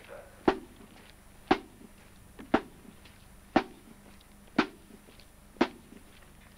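Marching band's bass drum beating the marching pace alone, one stroke about every second with no other instruments.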